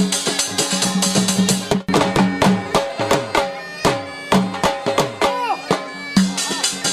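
Saraiki folk instrumental music: a reedy wind instrument plays a bending melody over a steady drone, with quick drum strokes.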